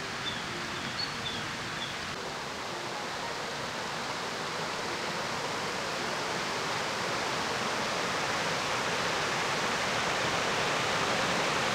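Small woodland brook rushing over a rocky cascade: a steady whoosh of running water that slowly grows louder.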